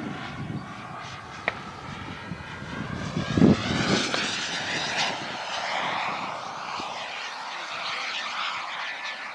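Wren 54 model jet turbine in a Boomerang Nano RC jet flying past overhead: a steady rushing whine with a sweeping, phasing quality as it passes. It swells to its loudest around three and a half to four seconds in, then fades slowly. A brief low thump and a sharp click stand out along the way.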